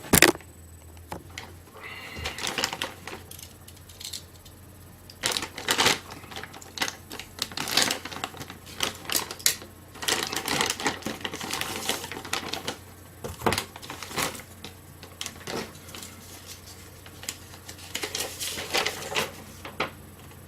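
Packaging being opened and handled by hand: an irregular run of sharp clicks, crackles and rustles from cardboard and plastic.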